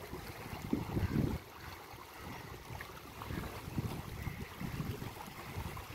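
Wind buffeting the microphone in uneven low gusts, the strongest about a second in, over the lapping and rippling of a shallow river current at the shore.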